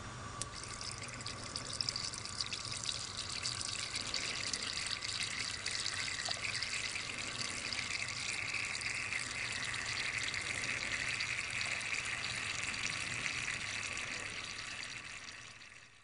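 Fine jets of water from hypodermic needles falling and splashing into the collecting vessel of a water-drop charge generator: a steady trickling hiss, with a few faint ticks in the first couple of seconds. It fades out near the end.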